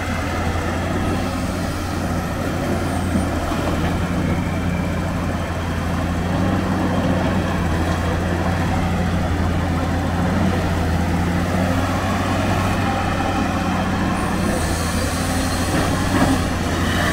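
Diesel engine of an XCMG amphibious excavator running steadily as it moves through the water, a low even drone.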